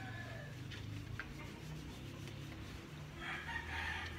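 Faint rubbing of hands working soap into a wet dog's coat. A rooster's crow tails off at the start, and another call from the fowl comes about three seconds in.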